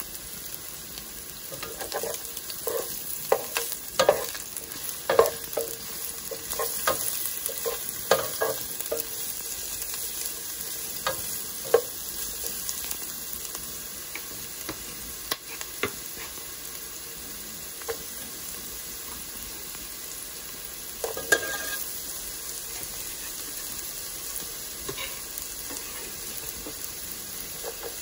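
Chopped garlic, ginger and onions sautéing in hot oil in a stainless steel pot: a steady sizzle, with scattered scrapes and clicks of stirring that are busiest in the first ten seconds and come again briefly about three-quarters through.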